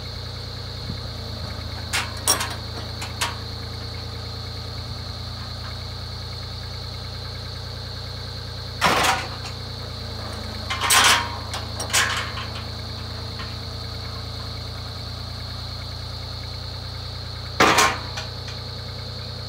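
The REX 1050 log saw's engine runs steadily with a steady high whine while its hydraulic log deck folds up. Several short, loud bursts of noise break through as the deck sections move: three small ones about two to three seconds in, louder ones around nine, eleven and twelve seconds, and one near the end.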